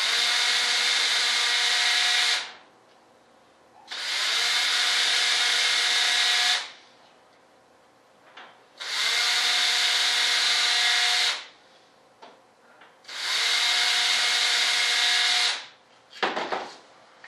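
A small power tool motor running in four even bursts of about two and a half seconds each, with short pauses between, followed by a few clicks and knocks near the end.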